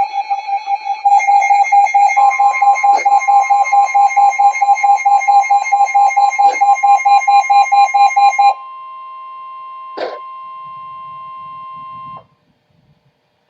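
Electronic emergency-alert tones: a fast-pulsing alarm beep, about five a second, over a steady tone. About eight and a half seconds in the pulsing stops, leaving a steady two-note tone that cuts off abruptly near the end.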